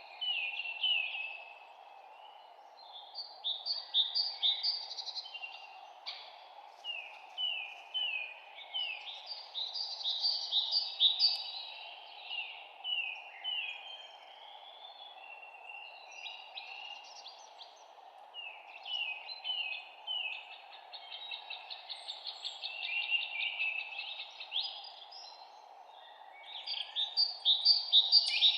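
Songbirds singing in phrases of quick, falling chirps, a new phrase every few seconds, sometimes overlapping, over a steady background hiss.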